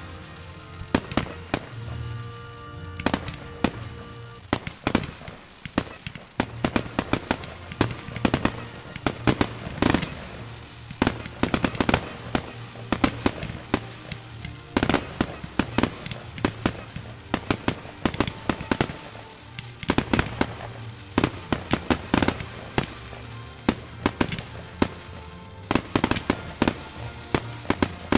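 Fireworks shots firing and bursting in quick succession: a dense string of sharp bangs and crackles, several a second, with the loudest reports coming in clusters.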